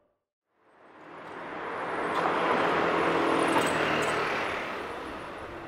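A vehicle passing close by on a city street: its noise swells up out of silence to a peak about three and a half seconds in, then fades away.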